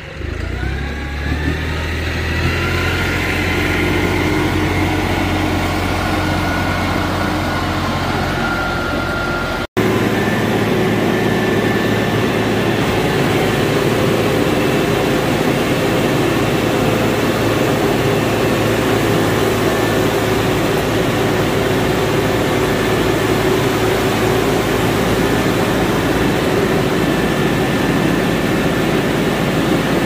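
A tractor and the Lewis Poultry Housekeeper litter de-caker it drives, working as crusted chicken litter is unloaded onto the pile. The engine's pitch rises over the first couple of seconds and then holds steady. After a brief dropout about ten seconds in, the machinery runs steadily and noisier.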